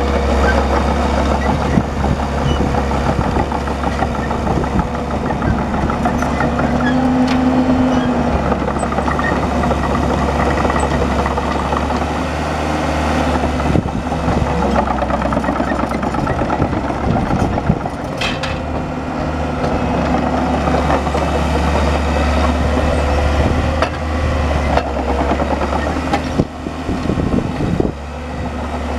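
Bomag 815-2 asphalt paver's diesel engine running steadily, with a short higher-pitched tone about seven seconds in and a sharp tick around eighteen seconds.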